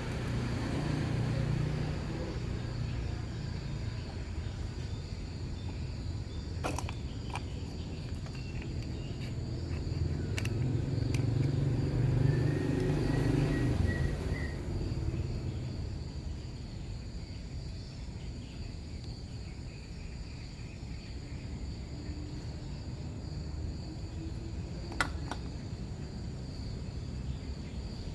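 Outdoor background of steady insect chirring. A low rumble swells twice, and a few sharp clicks are heard.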